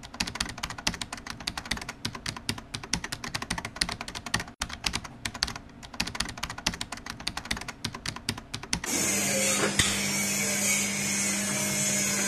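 Rapid keyboard typing sound effect, then after about nine seconds a sudden change to an electric copra slicing machine running with a steady hum and hiss, with one sharp knock a second later.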